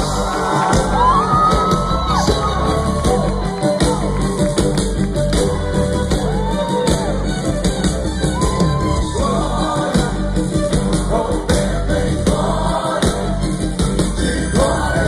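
Live gospel band playing loudly through a stage PA with a singer's voice over a steady drum beat, heard from within the crowd, with people shouting and singing along.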